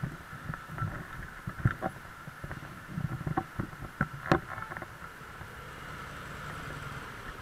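Harley-Davidson Softail V-twin engine running at low speed, a low uneven rumble broken by scattered knocks and clicks, with one sharp click about four seconds in.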